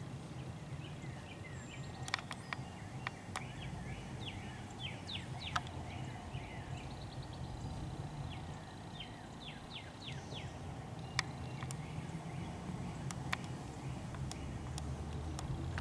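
Small birds chirping over and over in quick, short, falling notes, over a steady low background rumble, with a few sharp ticks.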